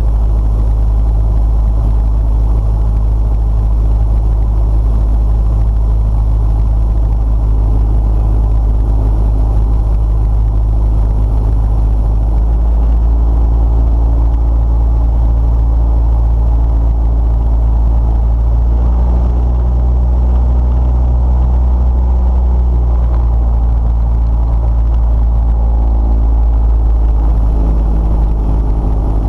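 Cessna 172/180 Skyhawk's piston engine and propeller droning steadily, heard from inside the cockpit on approach; its tone shifts a few times in the second half.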